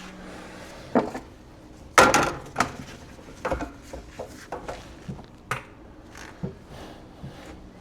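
Irregular knocks and clatter of wooden stakes and tools being handled and set down, the loudest knock about two seconds in.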